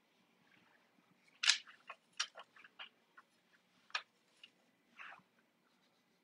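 Faint, irregular clicks and taps of a paintbrush against a small plastic watercolor palette as paint is picked up and mixed, with a brief scrubbing sound about five seconds in.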